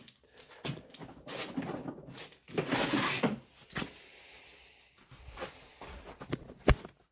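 Footsteps and shuffling on a concrete floor, with scattered light knocks and rustling, then one sharp knock near the end.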